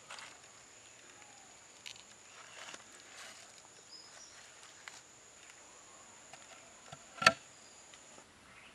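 Banana-leaf parcel rustling and scraping as it is pushed into a clay oven, then one sharp knock about seven seconds in as a wooden board is set against the oven mouth. An insect's steady high whine runs underneath and stops near the end.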